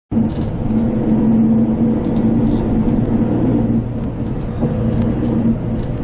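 Engine and road noise inside a moving bus: a steady drone with a low hum that eases slightly after about four seconds.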